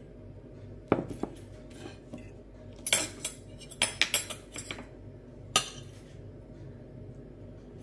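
Metal fork clinking and scraping against glass plates, with a few sharp clinks about a second in, a busy run of clinks from about three to five seconds in, and a last one near six seconds.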